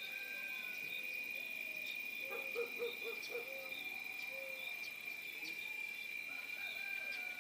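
Country morning ambience: insects buzz in a steady high drone, and scattered birds call. About two and a half seconds in, a bird gives a quick run of five low, hoot-like notes.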